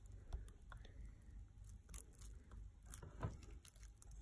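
Faint squelching and clicking of homemade cornflour-and-glue slime being stirred, with a few soft knocks, the clearest about three seconds in.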